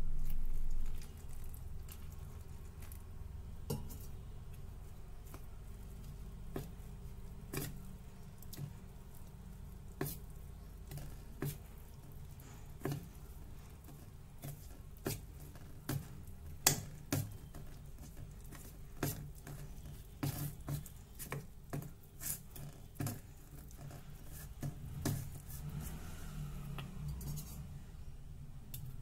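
Steel spoon stirring besan (gram-flour) batter in a small steel bowl, clinking irregularly against the sides of the bowl as the flour and water are mixed.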